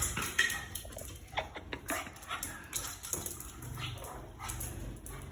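A Boston terrier making a few short whines and yips.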